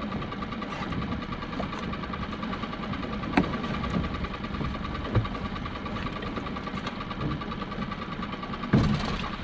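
Small boat's outboard motor idling steadily while a pot rope is hauled in by hand, with a sharp knock about three and a half seconds in and a louder thump near the end.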